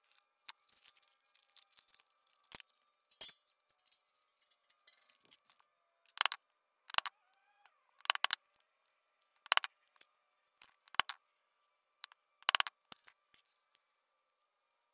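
A hammer tapping a hole punch through gasket sheet onto a steel plate: about ten sharp metallic taps, several in quick pairs. Lighter clicks and rustling of the sheet being handled come in between, mostly in the first few seconds.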